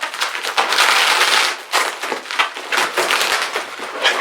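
Plastic bubble wrap being handled and pulled apart, with a dense run of loud crinkling and sharp crackles in uneven clusters.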